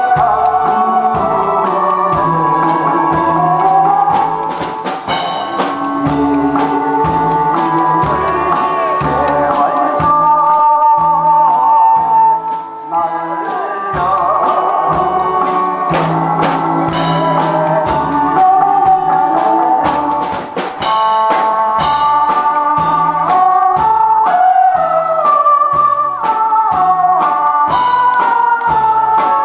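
A man singing into a microphone over instrumental accompaniment with a steady beat.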